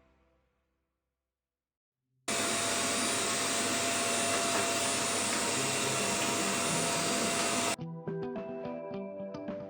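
Vacuum cleaner running steadily with a faint whine. It starts suddenly a couple of seconds in and cuts off abruptly, and background music follows near the end.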